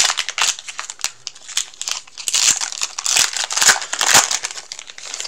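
Foil wrapper of a Pokémon TCG booster pack being torn open and crumpled by hand: a dense run of crinkling crackles and snaps, busiest in the second half.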